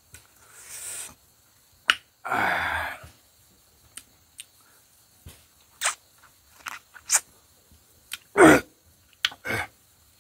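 Sharp wet clicks and slurps of a man sucking cooked snails out of their shells and eating them, with two longer, louder slurps about two seconds in and near the end.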